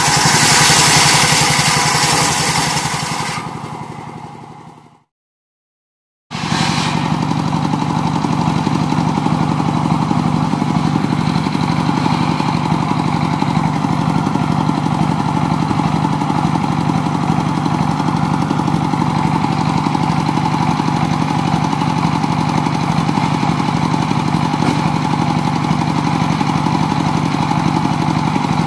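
Engine-driven bench sawmill cutting a log, a loud rushing saw noise that dies away over the first few seconds, then about a second of silence. After that the sawmill's engine runs steadily with no cutting sound.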